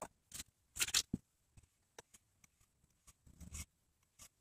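Manual lever-action grease gun being worked on the grease fitting of a new outer tie rod end: scattered small metallic clicks and scrapes from the coupler and lever, the strongest about a second in and another few near the end.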